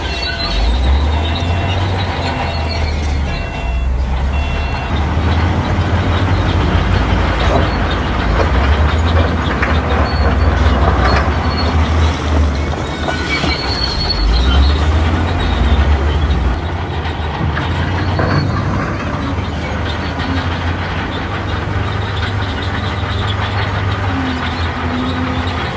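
Shantui D31P crawler bulldozer working: its diesel engine running under load, with the grinding and intermittent high squeal of its steel tracks.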